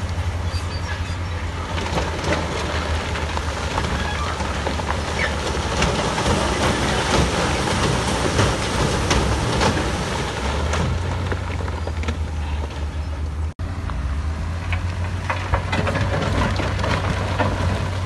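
Heavy diesel earthmoving machine running steadily with a low engine rumble and constant clanking and rattling of metal and rock. The sound cuts out for an instant about thirteen and a half seconds in.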